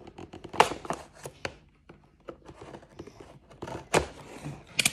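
A small paint set's packaging being handled and opened: crinkling with a run of sharp clicks and snaps, the loudest about half a second in and near the four-second mark.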